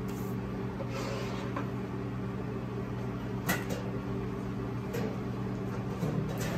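Light knocks and clunks of kitchen handling at a gas range over a steady low electrical hum. The sharpest knock comes about halfway through, and a clunk like a door or cupboard comes near the end.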